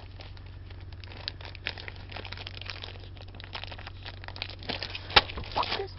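Crinkling and rustling of belongings being handled and rummaged through, many small crackles and ticks with a sharper click about five seconds in, over a steady low hum.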